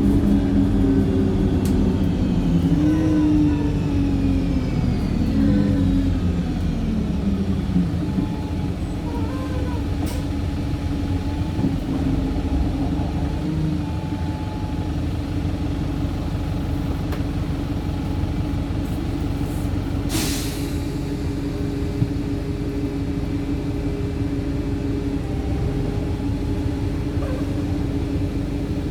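Wright StreetLite single-deck bus's diesel engine heard from on board, an engine the uploader calls tired: its pitch rises and falls several times in the first eight seconds or so, then it runs steadily. About twenty seconds in, a short hiss of released air from the bus's air system.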